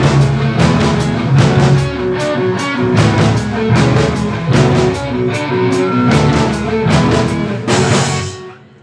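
Jazz-rock fusion band playing live: electric guitar and drum kit over bass, with a steady rock beat. The music fades out near the end.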